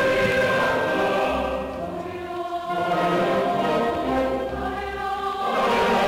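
Background choral music: a choir singing long held notes.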